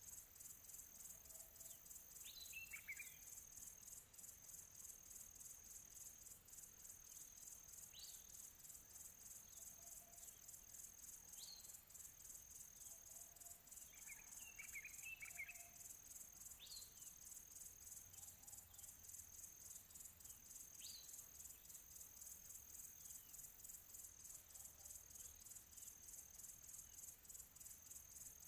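Near silence with a faint, steady high-pitched chirring like insects, rapidly pulsing throughout. A few short, falling chirps come and go over it.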